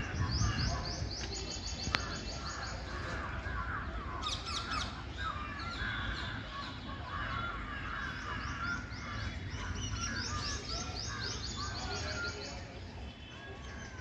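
Several birds chirping in the trees: quick runs of high, falling notes near the start and again near the end, over busier, lower chattering that goes on throughout.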